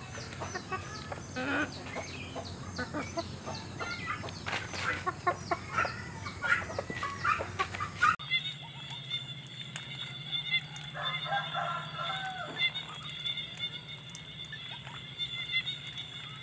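Chickens clucking and calling, many short calls overlapping. About halfway through, the background changes abruptly to a steady high drone, and a few seconds later there is one longer, drawn-out bird call.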